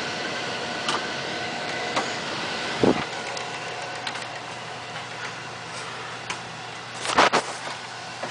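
Central air conditioning system running with a steady rush of air, easing off and quieting about three seconds in as the system shuts off, leaving a low hum. A thump about three seconds in and a louder knock near the end.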